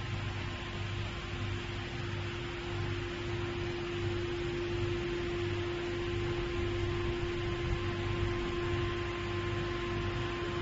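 Steady electrical hum and hiss of idle machinery, with two held tones and a low throb that pulses roughly every two-thirds of a second.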